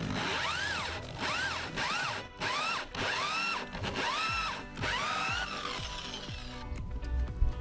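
Electric drill cutting a hole in a boat's deck with a hole saw, its motor whine rising and falling in about eight short pulses as the trigger is squeezed and eased. It stops about five and a half seconds in.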